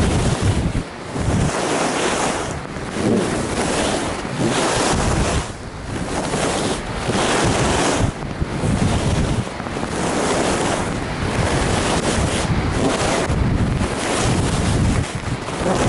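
Wind rushing over the microphone of a moving skier, mixed with the swish and scrape of skis on snow, surging and easing roughly every second as the turns are linked.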